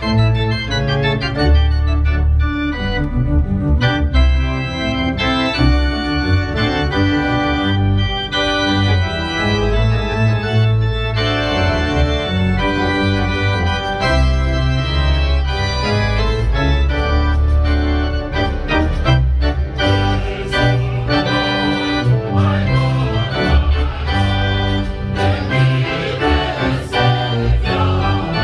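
Organ music played on a two-manual organ, chords on the keyboards over deep, sustained bass notes from the pedalboard.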